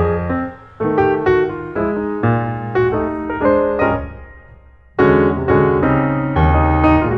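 Background piano music, a run of notes that fades out about four seconds in before the playing starts again.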